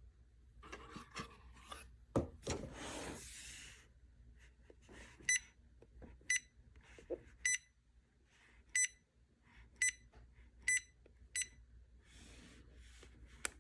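Rubbing and handling noise with a sharp knock, then a portable car jump starter beeping seven times, short electronic beeps roughly a second apart at uneven spacing.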